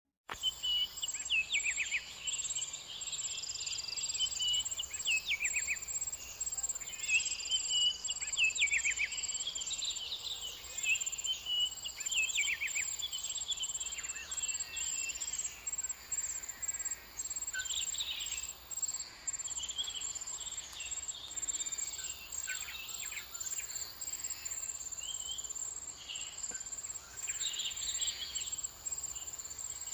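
Garden ambience: an insect, cricket-like, trilling in a steady high pulsing drone, while small birds call in short runs of quick falling notes, most often in the first half.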